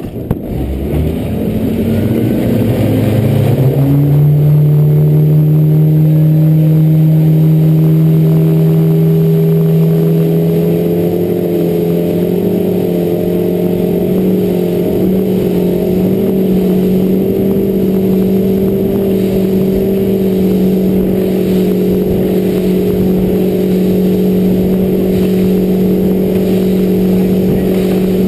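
Motorboat engine throttled up hard: its pitch climbs steeply over the first few seconds as the boat accelerates, then holds a steady drone at high speed.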